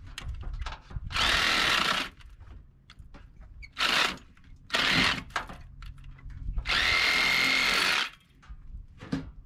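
Power impact wrench run in four bursts to loosen fasteners, two longer runs of about a second and two short ones, each with a steady whine over the hammering rattle.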